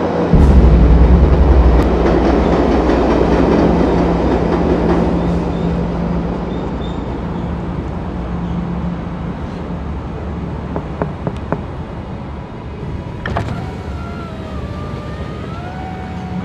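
A heavy low vehicle rumble starts suddenly and slowly fades over a steady low hum. About thirteen seconds in there is a click, then a car's electric window motor whines for about three seconds as the side window goes down.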